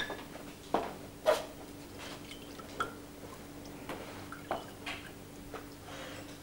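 A few light knocks and clinks, scattered a second or so apart, over a faint steady hum.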